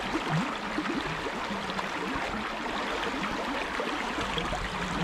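Steady rush of a fast-flowing river run moving over stones.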